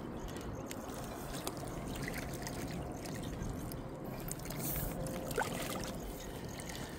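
Small waves lapping and trickling against a rocky bank, a steady low wash. About five and a half seconds in comes one short, sharp chirp.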